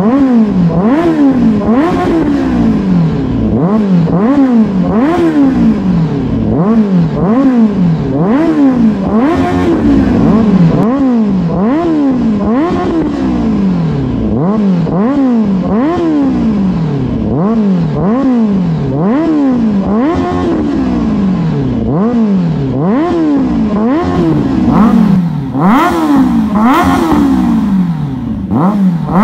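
Kawasaki Ninja 1000SX's inline-four engine revved again and again in neutral through a full aftermarket exhaust with dual Black Knight mufflers: repeated throttle blips about one every second, each rising quickly and falling back. A few harder, higher revs come near the end.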